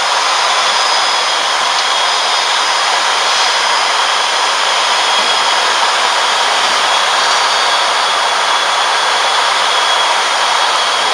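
Steady cockpit noise of an ATR 72-600 turboprop airliner in flight: an even rush of engine, propeller and airflow noise with a faint high whine.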